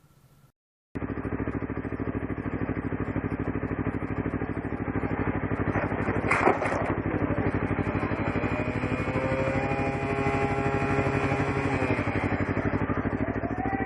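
Motorcycle engine running steadily, starting abruptly about a second in, with a brief sharp clatter about six seconds in.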